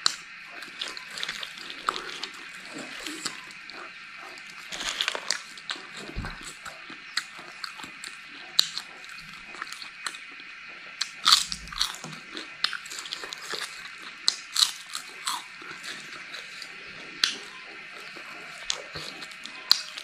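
Close, crisp crunching and chewing of crispy cicadas, bitten and chewed in irregular crunches, with the loudest bites a little past halfway.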